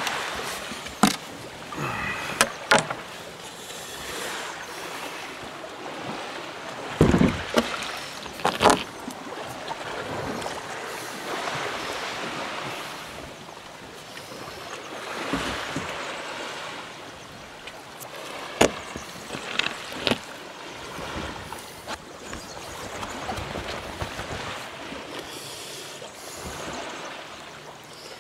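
Seawater sloshing and splashing around a sea kayak on the water, with sharp splashes or knocks now and then, the loudest about seven to nine seconds in and another cluster around nineteen to twenty seconds.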